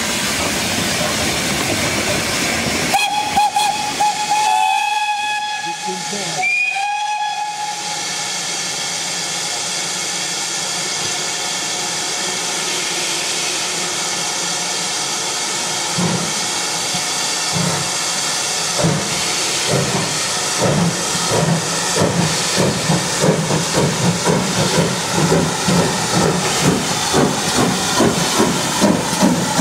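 Steam hissing, broken a few seconds in by two blasts of a steam locomotive whistle. From about halfway, the chuffing exhaust beats of double-headed steam locomotives led by GWR Collett 0-6-0 No. 3205 starting a train away, quickening to about two beats a second.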